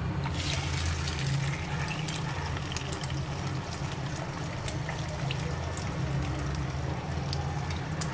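Beaten eggs poured into hot oil in a wok, frying with a steady sizzle and many small crackles that start about a third of a second in. A steady low hum runs underneath.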